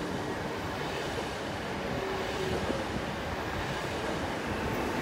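PKP Intercity ED161 (Pesa Dart) electric multiple unit running out of the station past the platform: steady rolling noise of wheels on rails, with faint brief tones from the drive.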